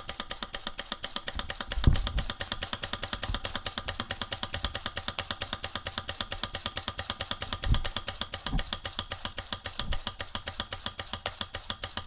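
Small live-steam model engine, a Stirlingkit vertical single-cylinder kit, running on steam from its boiler with a fast, even chuffing beat, now that its steam and exhaust ports are connected the right way round. A few dull knocks come through, the loudest about two seconds in.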